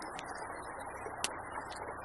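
Wood campfire crackling: a steady hiss with scattered small pops, and one louder, sharper pop about a second in.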